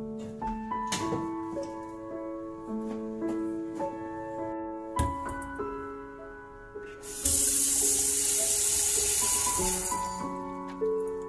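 Tap water running into a stainless steel bowl in a stainless steel sink, starting about seven seconds in and stopping after about three seconds, over soft piano music.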